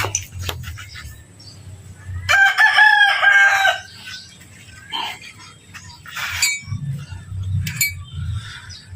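A rooster crowing once, a single long call starting about two seconds in, with a few short knocks before and after it.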